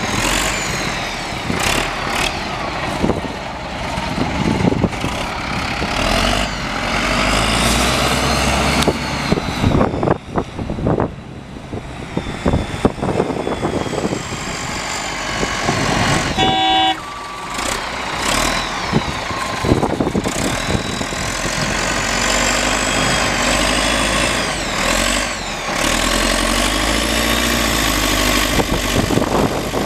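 Caterpillar 936F wheel loader's diesel engine running and revving up and down as the machine drives and works its bucket. A short beep sounds about sixteen seconds in.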